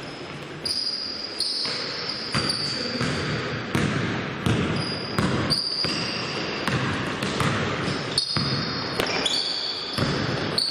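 Basketball game play in a gym hall: a ball bouncing repeatedly on the court floor, with short high-pitched squeaks of players' shoes.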